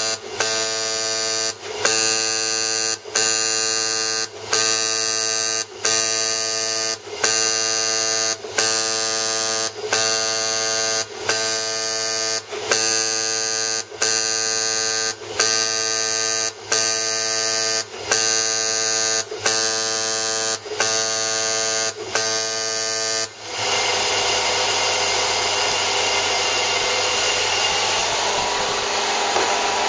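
Piezo jetting dispenser head buzzing as it jets underfill liquid under BGA/LGA chip packages, in repeating runs of about a second and a half, each broken by a brief pause. About 23 seconds in, the buzz stops abruptly and a steady hiss of machine noise takes over.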